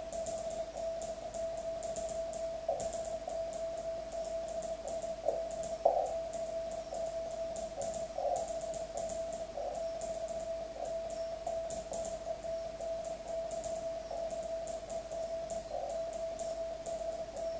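Morse code (CW) from an amateur radio on the 40 m band: a single mid-pitched tone keyed on and off in rapid characters, with faint high-pitched ticks over it.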